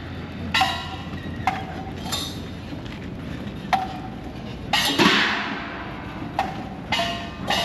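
Metallic percussion in a festival dragon-boat practice, struck about nine times at uneven spacing, each stroke ringing briefly. A heavier clash with a longer, shimmering decay comes about five seconds in.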